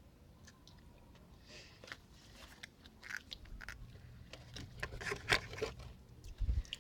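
Someone eating cupcake frosting close to the microphone: irregular wet mouth clicks and small crunching noises that grow busier toward the middle, then a low thud near the end.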